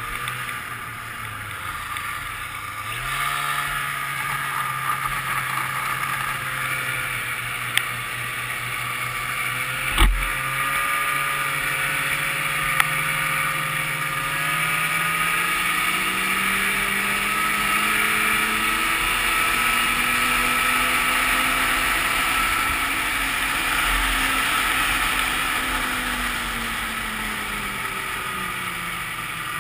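1995 Ski-Doo Grand Touring's two-stroke engine running under way on a snowmobile trail. Its pitch steps up about three seconds in, climbs steadily from the middle to a peak, then eases off near the end, with a hiss of wind and track noise underneath. A single sharp knock about ten seconds in.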